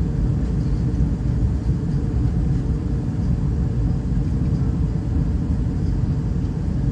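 Steady low rumble of an Airbus A320-211 in flight on approach, the engine and airflow noise heard inside the cabin.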